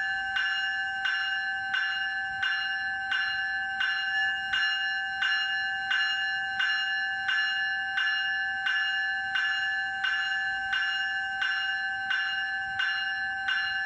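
Graham-White E-Bell, an electronic locomotive bell, ringing steadily at about three strikes every two seconds, its tone ringing on unbroken between strikes.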